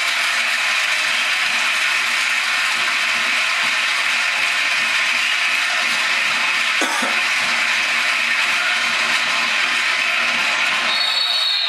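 Steady noisy din of a basketball crowd, thin and lacking low end, with a single brief knock about seven seconds in.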